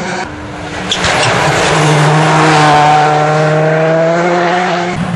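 Rally car engine held at high, fairly steady revs, growing louder to a peak about halfway through, then easing slightly before cutting off abruptly near the end.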